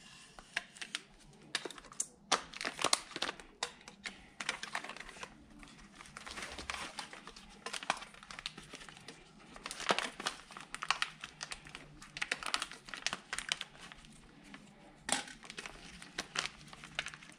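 Plastic blister packaging crinkling and crackling as it is slit open with a utility knife and pulled apart, in irregular rustles and snaps.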